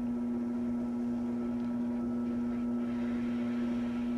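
Electric potter's wheel motor running, a steady electrical hum while the wheel spins.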